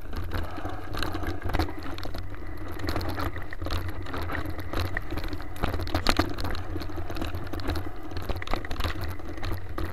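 Mountain bike rolling fast down a dirt trail: tyres crunching over dirt and roots, with frequent irregular rattles and knocks from the bike, over a steady low rumble of wind on the microphone.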